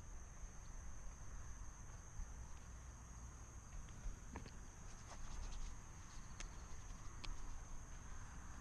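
Steady high-pitched insect chorus trilling without a break, over a low rumble and a few faint clicks.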